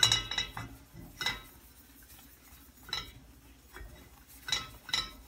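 Stainless steel frying pan clinking and knocking against the stove grate as it is wiped out with a paper towel: a handful of sharp metallic clinks at uneven intervals, each with a brief ring.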